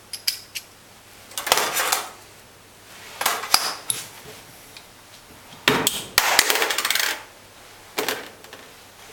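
Small steel parts of a unit pump, just taken apart, clinking and rattling against tools and a steel tray as they are handled and set down. The sound comes in about five short bursts, the longest and loudest about six seconds in.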